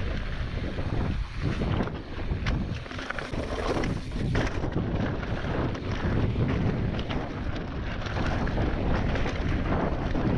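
Mountain bike descending a rocky trail at speed: wind buffeting the microphone over a steady rumble of tyres on stone, with frequent quick rattles and knocks from the bike.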